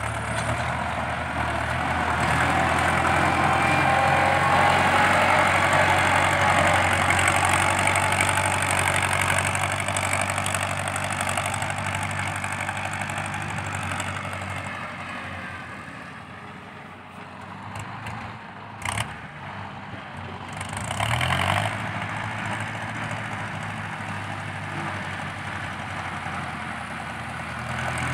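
Ford 6640 tractor's diesel engine working under load through a loud exhaust, rising in pitch over the first several seconds, then settling to a quieter, steadier run in the second half. A sharp click comes about two-thirds of the way through, with a short burst of noise just after.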